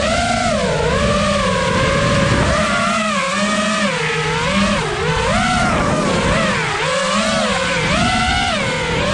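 FPV freestyle quadcopter's brushless motors whining, the pitch rising and falling constantly as the throttle is punched and eased.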